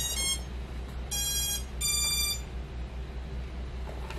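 Racing quadcopter's motors beeping their ESC start-up tones as a LiPo battery is plugged in: a short beep at the start, then two longer beeps about a second apart, the second higher.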